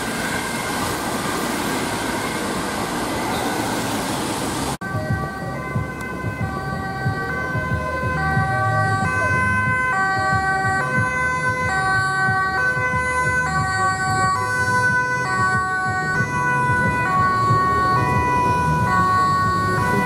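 Dutch ambulance's two-tone siren alternating steadily between a high and a low note, over road traffic noise. For the first few seconds it is fainter under a hiss of traffic; about five seconds in it changes abruptly to loud and close.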